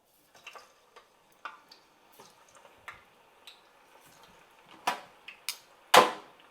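Chunks of green plantain frying in hot oil, the oil popping and spattering in irregular sharp cracks over a faint sizzle, the loudest pop near the end. The oil is running hot.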